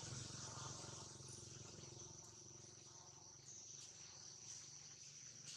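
Faint, steady, high-pitched insect trilling, one unbroken tone held throughout.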